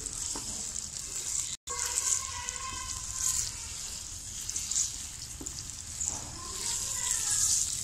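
Raw chicken pieces sizzling and crackling in hot oil in a karahi while being stirred with a wooden spoon. The sound briefly drops out about a second and a half in.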